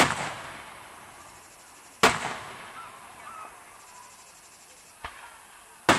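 Aerial fireworks shells bursting overhead: loud booms at the start, about two seconds in and just before the end, with a fainter pop about five seconds in. Each bang fades out in a long echoing tail.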